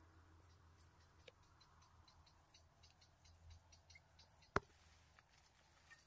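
Near silence with faint scattered ticks and one sharp click about four and a half seconds in, over a faint low hum.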